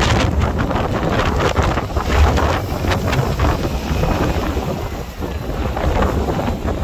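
Loud wind buffeting the microphone in irregular gusts, with a heavy low rumble underneath.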